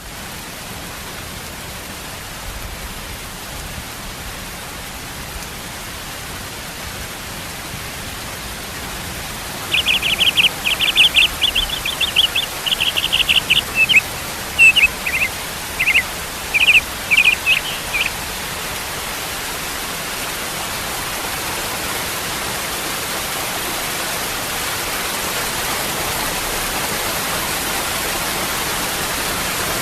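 Steady rushing of a waterfall, gradually growing a little louder. From about ten seconds in, a bird sings a rapid string of short, high notes for around eight seconds over the water.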